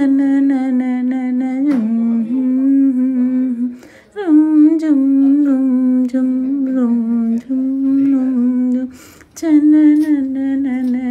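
A woman humming the tune of a sohar, a folk song for a child's birth, unaccompanied, in three long held phrases with short breaks between them.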